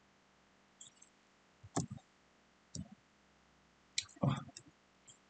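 A computer mouse clicking several times at irregular moments, short sharp clicks with a duller knock a little after four seconds in.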